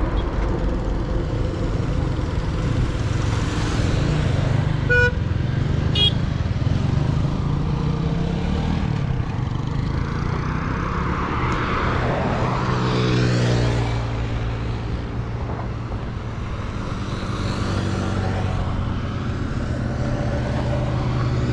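Motor vehicle engine running with road and traffic noise while travelling along a paved road. A couple of short beeps come around five and six seconds in, and the engine note grows stronger a little past the middle.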